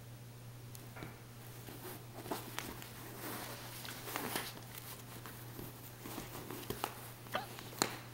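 A min pin and papillon mix puppy scuffling with a plush puppet on a fabric couch: soft rustles and scuffs of paws, fabric and stuffed toy, with a few sharp clicks near the end.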